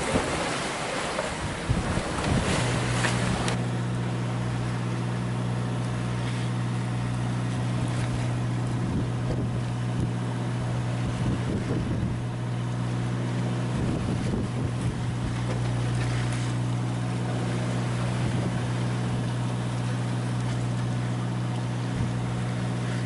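Wind buffeting the microphone for the first couple of seconds, then, from about two and a half seconds in, a steady low motor drone aboard a sailboat that holds unchanged.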